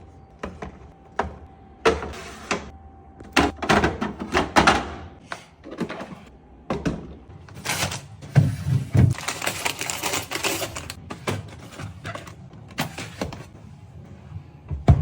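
Food containers and packages being handled and set down while a refrigerator is organised: irregular knocks, clatters and rustling, busiest from about four to eleven seconds in.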